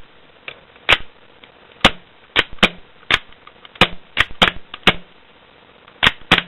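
KJW Glock gas blowback airsoft pistol being cycled after a water submersion test: about a dozen sharp, loud clacks at irregular intervals, some in quick pairs. They are a sign that the action still works after being underwater.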